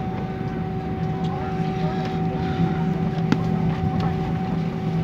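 Airbus A320 cabin noise while rolling on the runway: a steady engine drone with several steady hum tones over a rumble, and one sharp knock about three seconds in.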